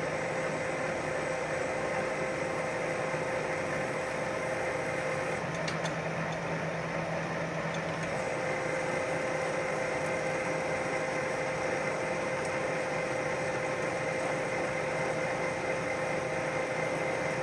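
Metal lathe running with a twist drill in the tailstock chuck boring into the spinning metal workpiece, drilling the hole that is next to be reamed to 3/8 inch. A steady machine hum with a constant whine, its pitch shifting briefly a few seconds in.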